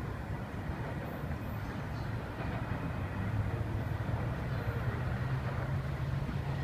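Freight train rolling away down the track: a steady low rumble.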